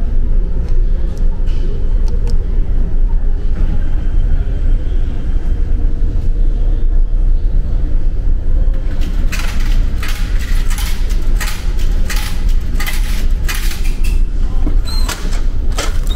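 A steady low rumble of the ferry's engines. About nine seconds in, a run of clicks and knocks comes from the spiral-coil vending machine turning and dropping a bagged towel set. Near the end a few more knocks follow as the pickup flap is pushed open.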